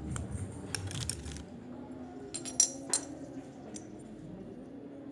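A series of light clicks and clinks of small hard objects being handled, with two sharp louder clicks close together about two and a half seconds in.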